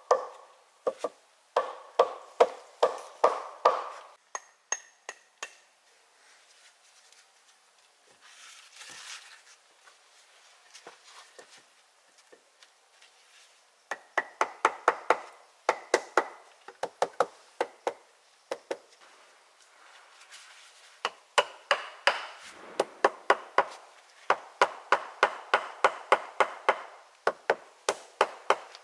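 Hammer blows on the upright logs of a log-frame shelter wall, in runs of quick strikes, several a second, with a stretch of fainter taps in the middle.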